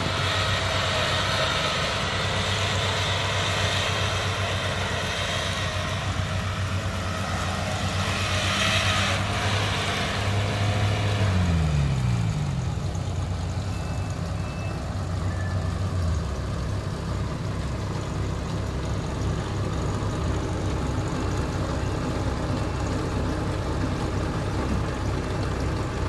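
Kubota PRO688Q combine harvester's diesel engine running steadily. About eleven seconds in its pitch slides down as the revs drop, then it runs on steadily at the lower speed.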